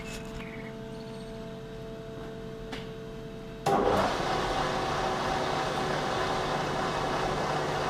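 Machine tool taking a roughing cut to open out an engine's crankshaft front oil seal housing. A steady hum gives way suddenly, a little over halfway, to a louder steady running and cutting noise.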